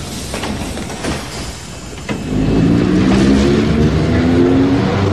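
Streetcar (tram) pulling away: a rumble with a few clacks of the wheels, then from about two seconds in a louder electric motor whine that slowly rises in pitch as it gathers speed.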